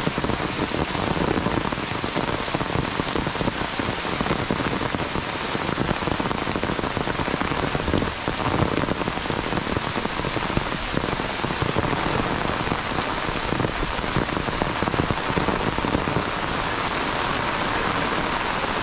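Heavy monsoon rain falling steadily on a wet dirt road, its puddles and the roadside trees: an even hiss of rain with no break.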